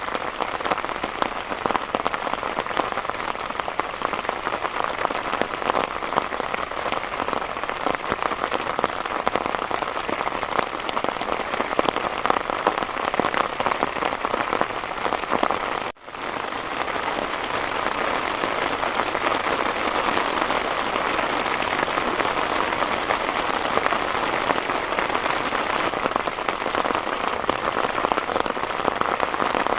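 Heavy rain falling steadily, a dense patter of drops. It cuts out for an instant about halfway through.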